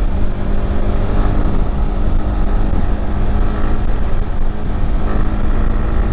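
Motorcycle engine running at a steady cruise under a constant low rumble, its pitch holding steady throughout.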